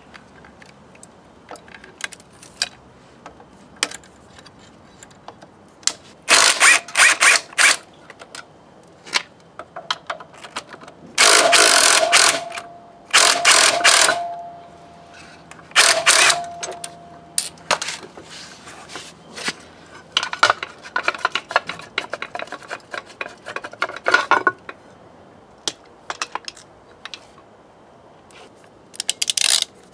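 Stanley FatMax cordless drill driving a socket in several short bursts of one to two seconds, each with a steady motor whine, undoing bolts on a BMW K75's rear drive and swingarm. Clicks and clatter of metal tools between the bursts.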